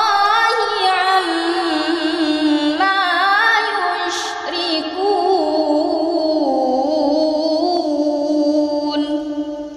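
A young woman's voice reciting the Quran in melodic tilawah style: a long, drawn-out phrase with ornamented, wavering pitch turns, broken by a short hiss about four seconds in. The voice fades out near the end.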